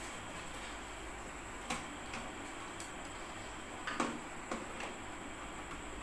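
Scattered light clicks and knocks of hard plastic parts of a model truck's cab being handled and fitted, the sharpest knock about four seconds in, over a steady hiss.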